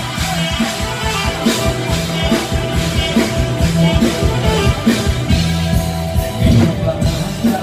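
Live Isan mor lam band music in the lam toei style, played loud through the stage PA, with a steady drum beat and a strong bass line.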